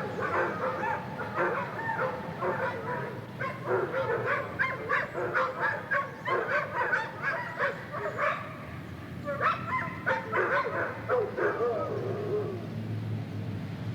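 A pack of wolves yipping and whining together: many overlapping, wavering calls with quick yips, going on throughout with a brief lull past the middle.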